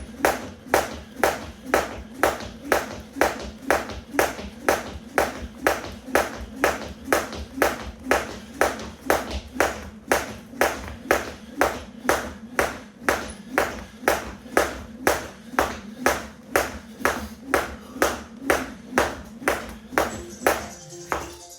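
Weighted 1 lb jump rope slapping the floor at a steady rhythm, a little over two strikes a second, stopping just before the end.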